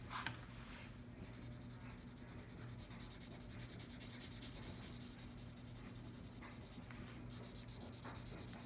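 A marker tip scribbling on paper with rapid back-and-forth strokes, filling in an area of colour. It is faint and starts about a second in.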